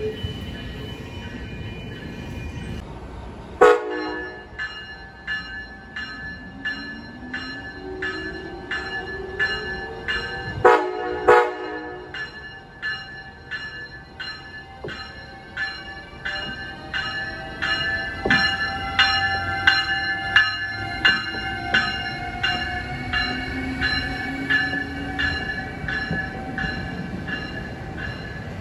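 Trains at a station: one short train horn blast about four seconds in and two more about eleven seconds in, a bell ringing steadily about twice a second from the first blast onward, and a train's electric motors whining, rising in pitch, over the rumble of passing railcars.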